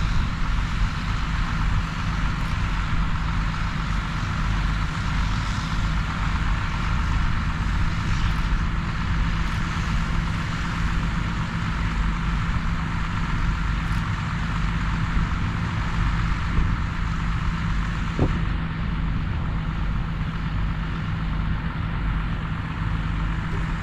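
A vehicle engine running steadily, a constant low drone with a steady hum that does not change in pitch.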